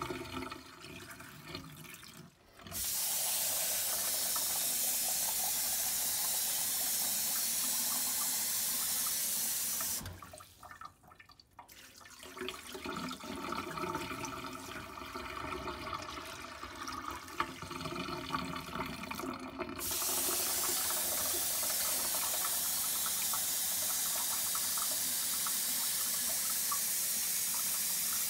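Kitchen tap running into a stainless steel saucepan of rice in two long, steady stretches, filling it for rinsing. Before and between these, the rinse water is poured off from the pot into the steel sink, an uneven splashing that is quieter than the tap.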